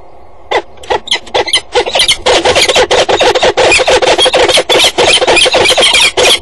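Peregrine falcons calling in a fight at the nest ledge: harsh, rapid cackling calls. A few separate calls begin about half a second in, then run together into near-continuous loud calling from about two seconds on.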